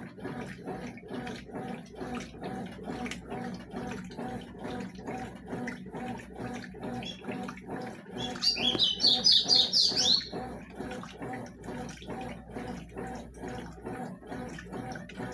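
Consul CWS 12 washing machine churning sheets in water during the rinse, a steady sloshing rhythm of about three strokes a second. About eight seconds in, a bird chirps rapidly for about two seconds, louder than the machine.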